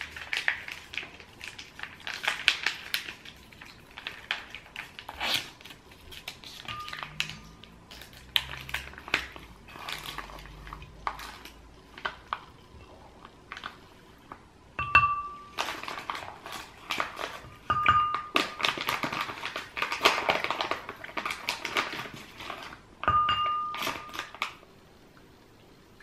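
A foil pouch of wet cat food crinkling as it is torn and squeezed, with a wooden spoon clicking and scraping against ceramic bowls as the food is scooped out.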